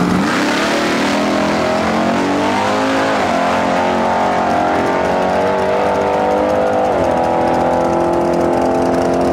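Chevrolet pickup truck's drag-race engine launching off the line and revving hard down the strip, its pitch climbing steeply at first and then dropping and rising again at two upshifts, about three and seven seconds in.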